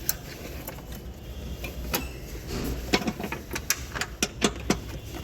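Metal parts and tools being handled: irregular sharp clicks and clinks, a few at first and then about a dozen in quick succession in the second half, over a low steady hum.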